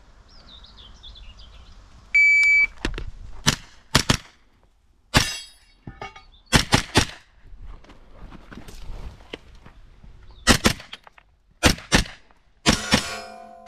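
Shot timer beeping once to start a stage, then a JP GMR-15 pistol-caliber carbine firing a string of shots, mostly in quick pairs, with short pauses while the shooter moves between positions.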